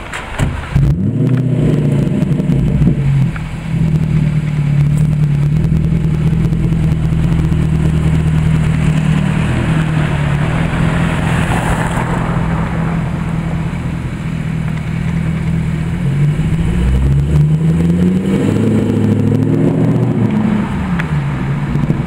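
Jaguar XKR's supercharged V8 starting up with a brief flare of revs, settling into a steady idle, then rising and falling in pitch as the car pulls away near the end.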